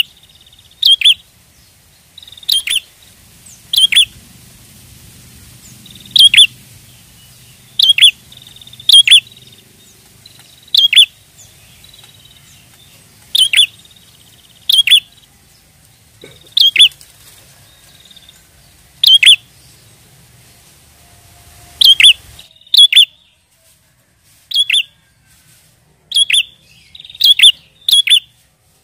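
Prenjak (prinia) calling: short, sharp, loud chirps repeated every one to two seconds, sometimes in quick pairs or runs. These are the bright calls used to lure wild prenjak.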